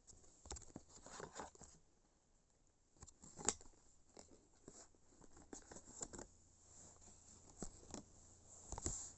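Plastic DVD cases being handled and slid out of a cardboard box set: faint scattered clicks and rustles, with one sharper click about three and a half seconds in.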